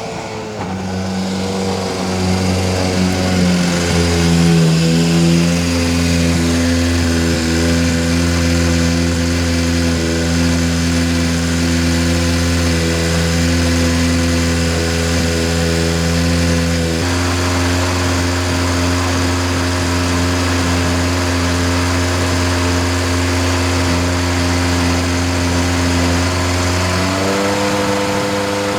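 An engine running steadily at an almost constant speed, its pitch stepping slightly up or down a few times: about three seconds in, midway, and near the end.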